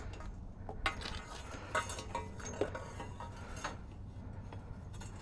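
A bent length of metal electrical conduit being handled and test-fitted, giving a few scattered metallic clinks and knocks.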